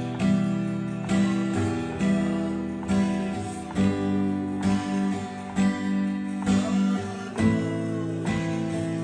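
Acoustic guitar strummed in a steady rhythmic pattern, with the chord changing every couple of seconds.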